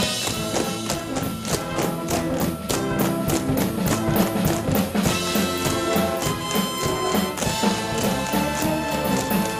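Pit orchestra playing an up-tempo show tune while a chorus tap-dances on a wooden stage, the tap shoes clicking sharply in time with the beat.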